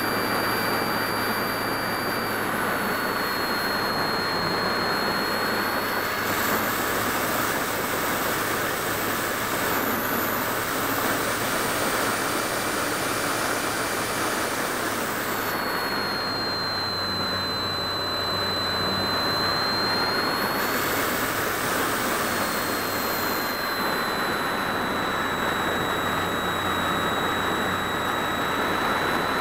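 Airflow rushing over the wing-mounted camera of a Phoenix 1600 electric RC glider in flight, easing off for a few seconds past the middle. Under it runs a thin, steady high whine that steps down in pitch about three seconds in and again around the middle.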